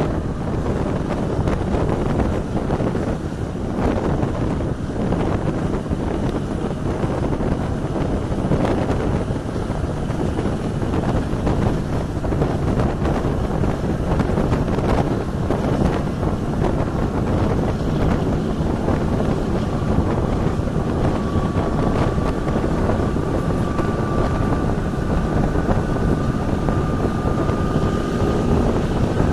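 Train running along the track, heard from an open carriage window: a steady rumble of wheels on rail with wind blowing across the microphone and occasional knocks. A thin high whine rises slowly through the last third.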